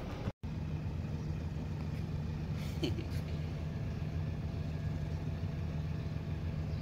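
Steady low mechanical hum, like a motor running. The sound cuts out for a moment just after the start, and a faint short squeak comes about three seconds in.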